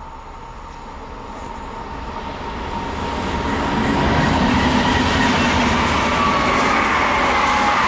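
ČKD class 471 CityElefant double-deck electric unit approaching and passing close by. The noise of wheels on rails grows louder over about four seconds and then stays loud, with a steady high whine over it.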